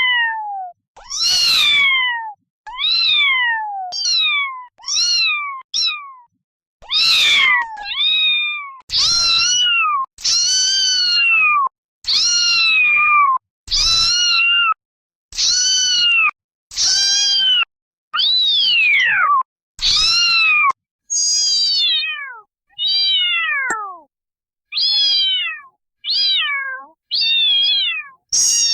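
Kittens meowing over and over, high-pitched meows about one every second or so with short silences between. Most meows slide down in pitch; some in the middle are longer and rise then fall.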